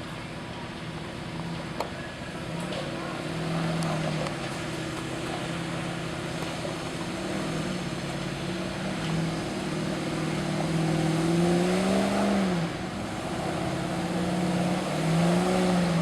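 Off-road 4x4 engine working under load, its revs rising and falling as it crawls an obstacle, with two stronger revs in the second half that are the loudest.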